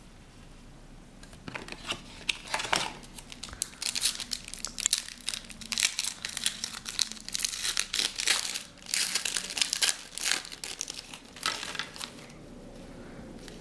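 Foil trading-card pack being torn open and crinkled by hand: a dense, crackly rustle in repeated spells that dies down near the end as the cards come out.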